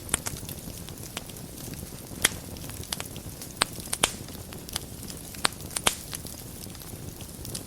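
Wood fire burning in a fireplace: a steady low rumble and hiss with irregular sharp crackles and pops, a few of them standing out.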